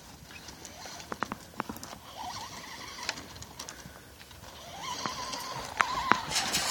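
Cattle hooves clopping and knocking on the ground in scattered, uneven strikes. A thin steady whine sounds for about a second around five seconds in, and there is a short burst of noise near the end.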